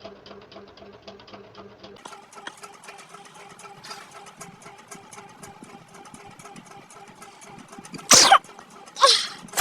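A woman sneezing, set off by tickling the inside of her nose: one sharp, loud sneeze about eight seconds in, followed by two more loud bursts of breath and voice near the end. Under it, a steady faint hum with fast regular ticking.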